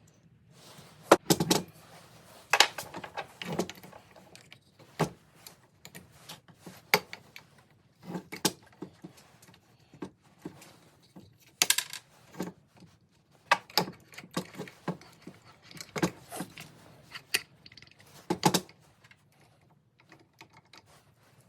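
Irregular metallic clinks and rattles of small tools and parts being handled, with several louder clacks scattered through.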